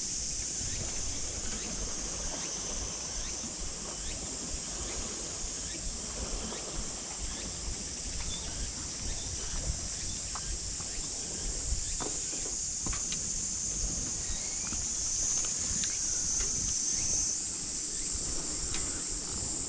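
Steady high-pitched chorus of insects, the loudest sound throughout, over the low rumble of a bicycle rolling along a paved path in the wind, with a few faint clicks.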